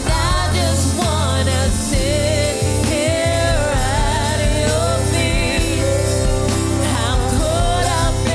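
Slow gospel worship song: a singer's voice drawing out wavering, vibrato-laden lines over steady held chords and bass.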